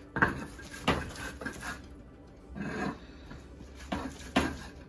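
Herbs and garlic being ground between a hand-held stone and a flat stone slab, stone scraping on stone. A few sharp knocks come near the start and again near the end as the stone is rocked forward, with a longer scraping rub in between.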